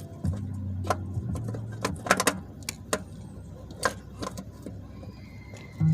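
Hand tools clinking against metal parts of the car during work on the starter: scattered sharp clicks and knocks, about a dozen over several seconds.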